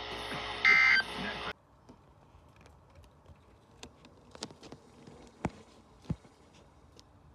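Weather-radio Emergency Alert System broadcast ending with a short warbling digital data burst about a second in, the end-of-message code of the severe thunderstorm warning. The broadcast audio then cuts off abruptly to faint hiss with a few soft clicks.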